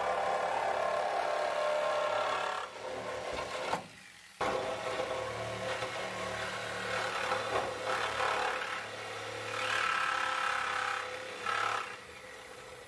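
Sawzall reciprocating saw cutting through the Miata's sheet-steel floorpan, the blade rasping steadily through the metal. It pauses briefly about four seconds in, then resumes, and eases off near the end.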